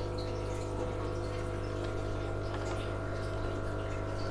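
Aquarium pump humming steadily, with water bubbling and trickling in the tank.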